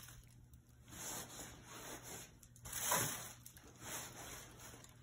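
Plastic shopping bag and polyester pillow stuffing rustling and rubbing as handfuls of fiberfill are pulled out and packed into a fabric pillowcase, in several short bursts.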